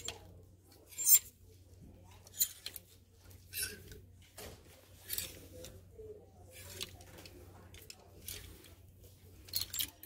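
Clear plastic clothes hangers slid one after another along a clothing rack, each push giving a short clack and scrape, about once every second or so, the loudest about a second in. A faint steady low hum runs underneath.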